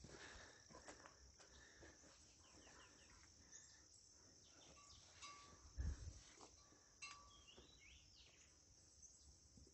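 Faint rural ambience: a steady high insect drone with a few short bird chirps, and a couple of faint cowbell clinks from nearby cattle. A dull low thump comes about six seconds in.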